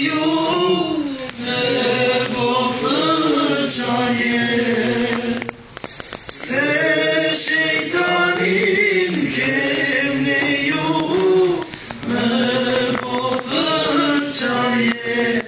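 A group of voices singing together in held, sustained notes, with a brief break about five and a half seconds in.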